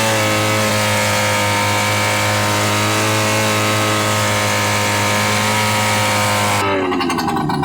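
Snowmobile engine running at a steady, even speed; near the end the sound changes abruptly, the hiss dropping away and the engine note falling.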